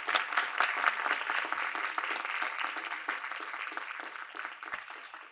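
A small audience applauding, the clapping thinning and fading away over the last couple of seconds.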